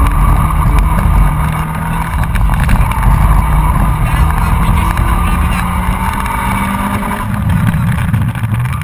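Honda Civic's 1.3-litre four-cylinder engine running hard, heard from inside the cabin, its pitch rising and falling as the car accelerates and slows.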